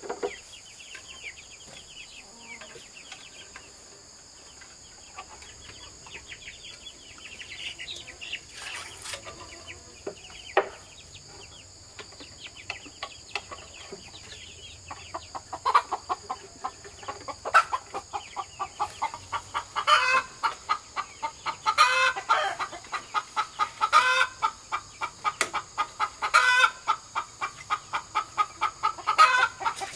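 Chicken clucking: scattered calls at first, then from about halfway a hen cackles steadily, several clucks a second, with a louder, higher squawk every two seconds or so.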